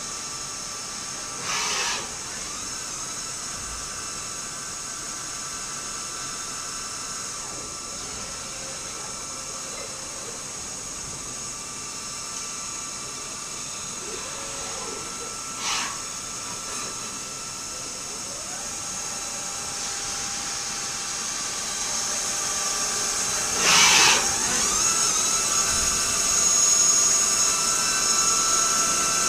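Tornos Deco 20 Swiss-type CNC lathe running: a steady high whine of several tones, with a few short rising glides in pitch. Three short noisy bursts break in, about 2 seconds in, midway, and about 24 seconds in, the last the loudest, and the machine gets louder over the last few seconds.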